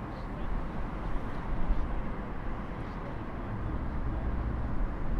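Wind buffeting the camera microphone: a low, uneven rumble that gusts harder between about one and two seconds in.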